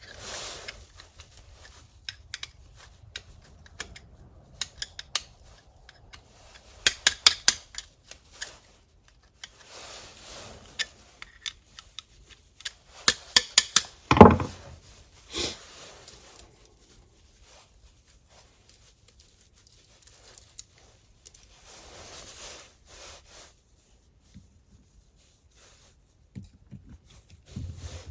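Small metal clicks, ticks and rattles from handling and adjusting a battery mini chainsaw's bar and chain, with quick runs of ticks and one louder knock about halfway through.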